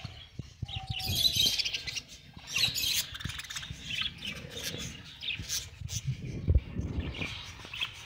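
A flock of budgerigars chirping and chattering in many short, overlapping calls, with a few soft knocks mixed in.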